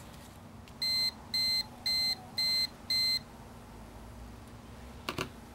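Five short, even electronic beeps, about two a second, from the timer of a YourStory heated book-binding machine: it beeps when left on too long, then shuts itself off. A single click follows a few seconds later.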